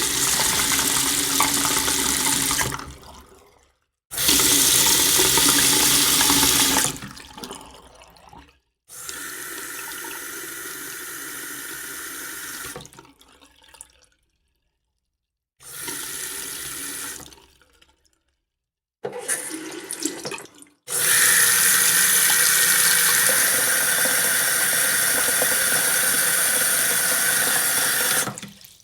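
Tap water running into a sink in about six separate takes, each starting and stopping with a short silence between them. Some takes are a heavier, louder stream and others a lighter flow.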